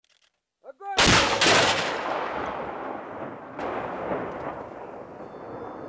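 Artillery gun firing: a single loud report about a second in, then a long rolling echo that slowly dies away, with a second, softer boom about two and a half seconds later.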